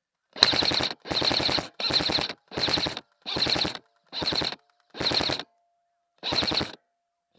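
Airsoft gun firing full-auto, heard right at the gun: eight short bursts in about seven seconds, each a rapid rattle of shots lasting around half a second.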